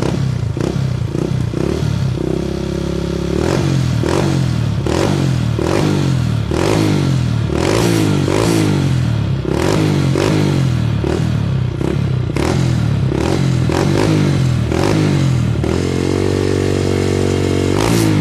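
Single-cylinder Honda Fan motorcycle with an aftermarket Fortuna exhaust, revved in quick repeated throttle blips about once a second, each rising and falling back, then held at higher revs for a couple of seconds near the end.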